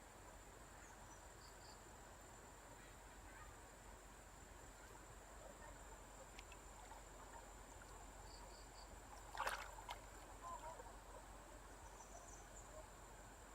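Faint water ambience with a brief splash about nine and a half seconds in, followed by a few smaller sloshes.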